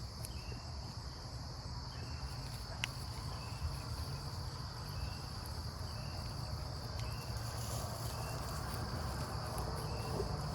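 Steady high-pitched insect chorus, crickets chirring in the field, with short faint chirps repeating about once a second over a low steady rumble.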